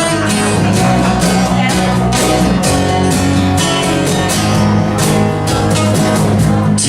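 Country band playing the instrumental intro of a song, with guitar over a steady beat.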